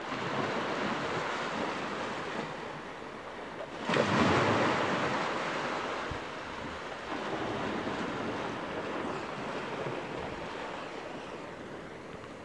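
Small sea waves washing on a beach, with wind buffeting the microphone. A louder surge comes about four seconds in and slowly fades.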